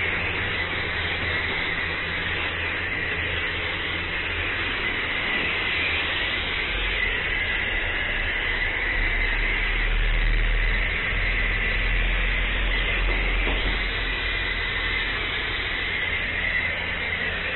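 A car-wash foam lance spraying active foam onto a motorcycle: a steady spray noise, with a low hum underneath.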